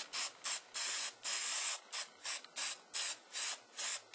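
Aerosol spray paint can hissing in a quick run of short bursts, about three a second, with one longer spray about a second in.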